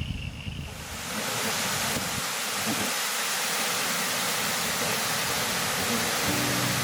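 Rain-swollen waterfall rushing, a loud even wash of falling water that swells in about a second in. Music comes in near the end.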